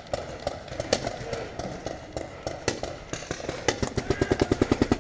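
Paintball markers firing: scattered single pops, then, a little past halfway, a rapid even string of shots at about ten a second.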